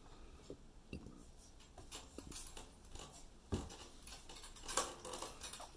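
A baby bouncing in a Jolly Jumper doorway jumper: faint clicks and clinks from the harness's metal clips, and soft taps of footed feet on a tile floor, with one louder thump about three and a half seconds in.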